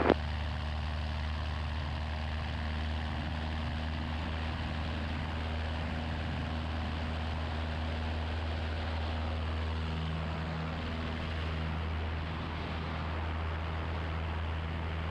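Cabin drone of a Grumman AA-5 single-engine light aircraft: its piston engine and propeller running steadily at cruise or climb power, an even low hum that barely changes.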